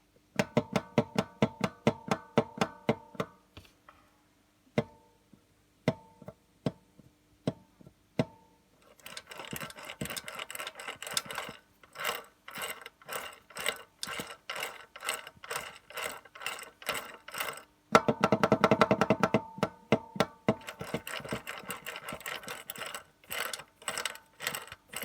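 A gearbox's driven (secondary) shaft knocking: rapid ringing metallic knocks, several a second at first, then a few single knocks, then a denser clatter from about a third of the way in.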